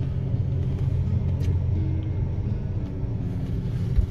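Steady low rumble of a car's engine and tyres heard from inside the cabin while riding in traffic, with a brief low thump near the end.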